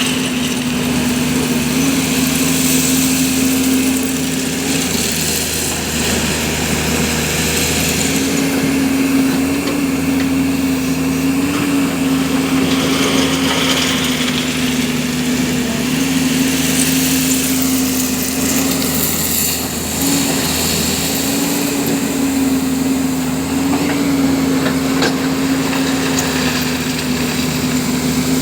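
JCB JS205 excavator's diesel engine running steadily, its pitch dipping slightly and recovering several times, with a hiss over it.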